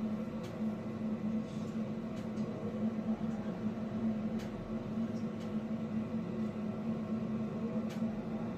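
A steady low hum, with a few faint clicks and faint snatches of a distant voice.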